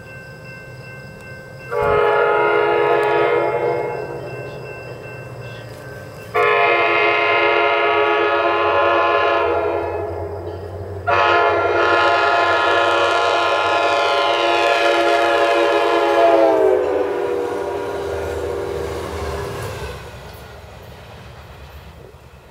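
Nathan K5LA five-chime horn on a MARC commuter cab car sounding three blasts for a grade crossing: a short one about two seconds in, then two long ones. The last blast falls in pitch as the train passes, over the low rumble of the train.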